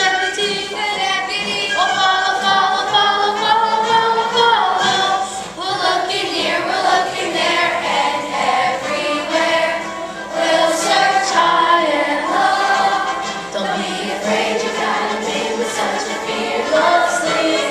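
Fifth-grade children's chorus singing a song.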